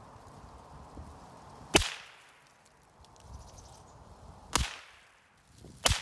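Three sharp gunshots fired at a small laptop hard drive lying in dry leaves, the first about two seconds in, the last two about a second apart near the end.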